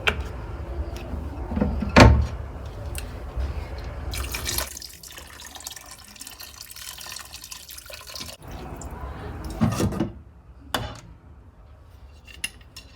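Water pouring from a jug into a cooking pot for a few seconds, with a loud thud before it and a couple of lighter knocks after it.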